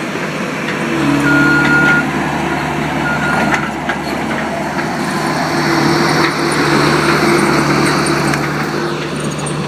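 Tier 4 diesel engine of a small earthmoving machine running under work. It gets louder about a second in, then runs steadily, with a short high beep-like tone twice near the start.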